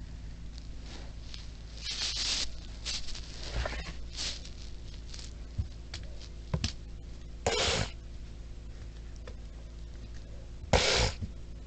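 Plastic parts of a Plarail toy train being handled during disassembly: irregular short scrapes and clicks, the loudest about two, seven and a half and eleven seconds in, over a steady low hum.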